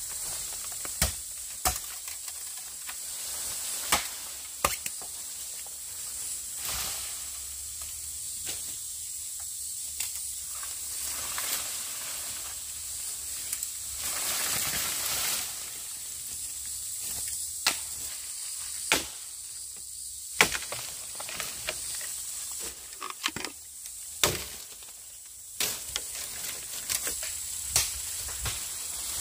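Irregular sharp knocks and clicks, a dozen or more scattered at uneven gaps, over a steady high-pitched hiss.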